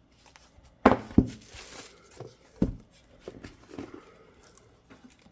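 Hands handling the contents of a DVD box set: a few sharp knocks and taps, the loudest about a second in, then softer rustling and light bumps of paper and packaging.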